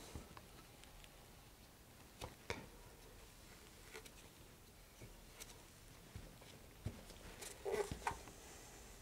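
Faint handling noises from nitrile-gloved hands working on a fiberglass rocket body tube with its fins: scattered small taps and rustles, then a louder cluster of knocks and rubbing near the end as the tube is lifted and handled.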